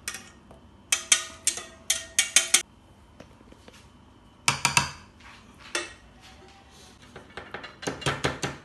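Metal whisk and spoon knocking and scraping against a saucepan and a metal springform cake tin, in three short bursts of clinks.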